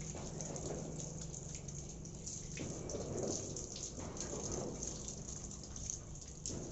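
Water running from a tap over a vegetable being rubbed by hand, splashing steadily into a steel bowl below.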